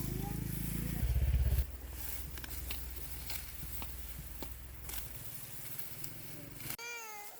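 A small engine running with a steady low hum, briefly louder about a second in, then fading away over the next few seconds. Near the end comes a short pitched call that rises and falls.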